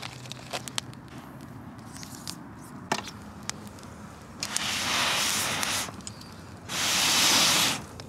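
Small wood fire crackling faintly, then two long rushes of air, each about a second, blown through a metal fire-blowing pipe into the fire.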